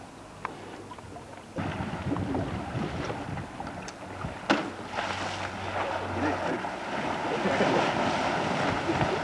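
Water splashing and churning as a rhinoceros thrashes in a pool with a large ball toy. It starts suddenly about a second and a half in, with one sharp knock partway through.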